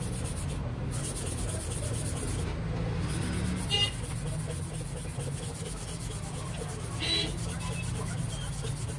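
A steady low rumble in the background, with two short scraping sounds, about four seconds in and about seven seconds in, as a hand rubs and presses a clear plastic strip against a wooden board.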